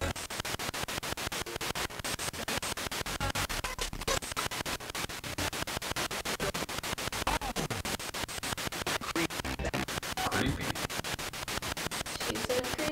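Ghost-hunting spirit box sweeping through radio stations: hissing static chopped into a fast, even pulsing, with brief fragments of broadcast sound caught between the pulses.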